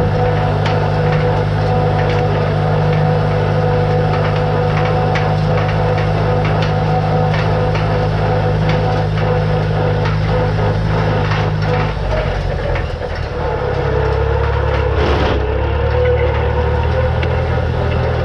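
Tractor engine running steadily under load while raking hay, with scattered sharp clicks and knocks over it. About twelve seconds in, the engine drops to a lower pitch as it is throttled down.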